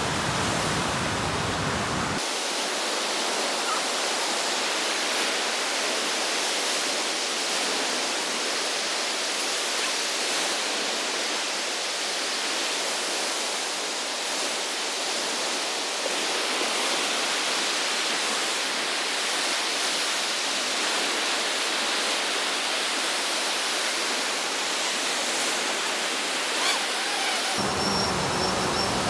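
Ocean surf breaking on a beach: a steady, even rush of waves.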